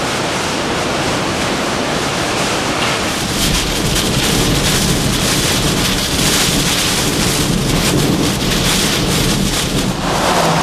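Hurricane wind and driving rain, with wind buffeting the microphone. About three seconds in the sound grows louder and harsher, with gusty flutter.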